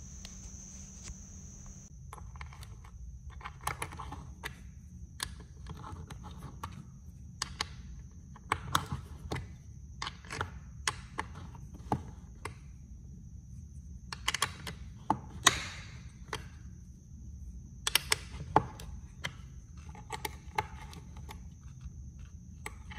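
Metal hex key and bolts under a chair seat clicking and knocking as the bolts are fitted and turned by hand: irregular sharp clicks, some in quick clusters.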